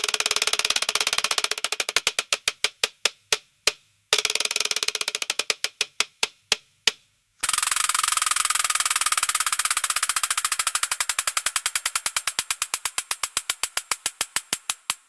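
A spinning gear wheel ticking, fast at first and slowing click by click to a stop. It is spun three times: the second spin starts about four seconds in, and the third, about seven and a half seconds in, is the longest.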